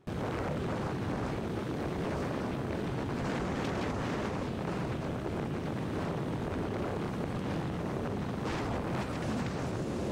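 Steady wind noise rushing over the microphone of a Suzuki Gixxer SF 250 motorcycle ridden at speed, with the bike's running and road noise mixed underneath.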